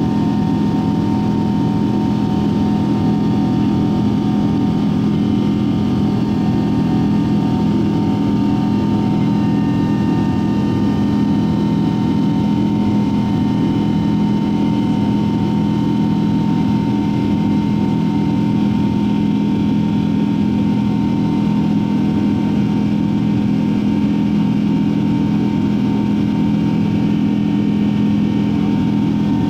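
Boeing 777-200's Pratt & Whitney PW4000 turbofan engines at climb power, heard inside the cabin next to the wing: a steady low drone with a steady whining tone above it.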